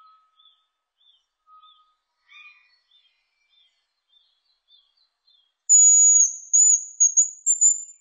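Hazel grouse song: a thin, very high whistle that begins about six seconds in, is held briefly, then breaks into several short dipping notes. Before it there are only faint short chirps.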